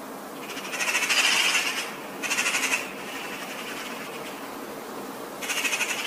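Eurasian jay calls: three harsh screeches. A long one comes about a second in, a short one at about two and a half seconds, and another near the end, over a steady background hiss.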